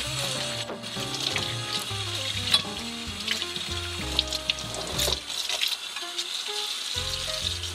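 Tap water running and splashing over a soapy carbon steel crepe pan in a stainless steel sink as the pan is rinsed.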